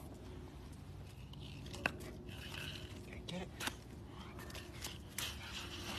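Dog snapping at and biting a chunk of snow or ice on a concrete sidewalk: a few faint crunches and clicks, about two seconds in, around three and a half seconds and near five seconds.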